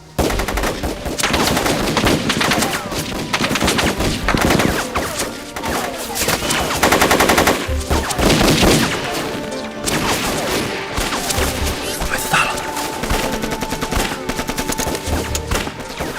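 Heavy gunfire in a war-film battle: dense, rapid bursts of machine-gun and rifle shots, starting abruptly.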